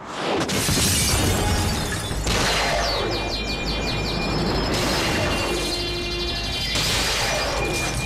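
Glass windows shattering in a loud crash that comes back in waves about every two seconds, with high ringing and tinkling shards between them, over dramatic score music. It is a TV sound effect of Black Canary's sonic device blowing out the glass.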